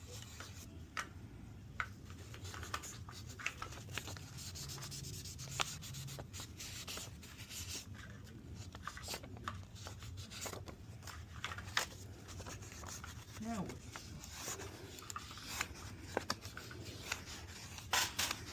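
Fine sandpaper (800 to 1500 grit) rubbed by hand over a steel 1911 pistol part to smooth its finish: irregular rubbing strokes with small clicks and taps, over a low steady hum.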